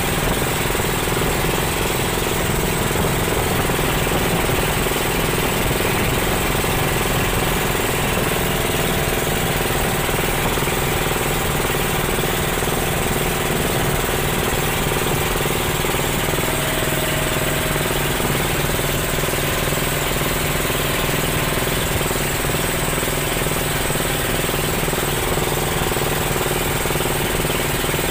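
Small wooden fishing boat's engine running steadily while the boat is under way, with the rush of water and wind past the hull.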